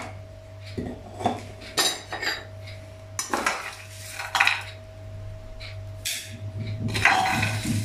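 A metal spoon scraping and clinking against a stone-coated frying pan as dry roasted whole spices are scooped out and tipped into a grinder jar, a series of separate clinks and scrapes, busier near the end.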